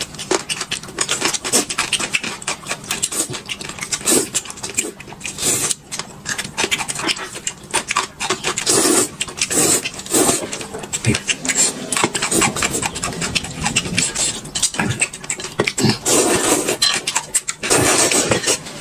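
Noodles being slurped and chewed close to the microphone: a dense, irregular run of short slurps and smacks.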